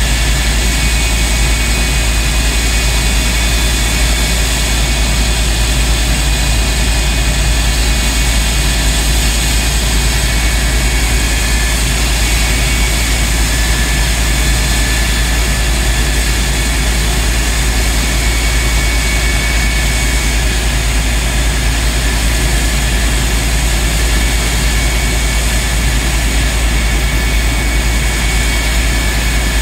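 The J79 turbojet of a CF-104D Starfighter running steadily: several high, even whining tones over a deep rumble, with no change in power.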